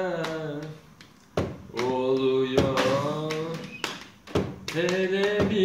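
A young man singing in long held notes, phrases of about a second each, with sharp slaps or taps marking a beat between the phrases.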